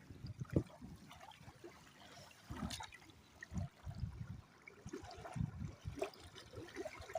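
Water trickling and splashing, with irregular low thumps.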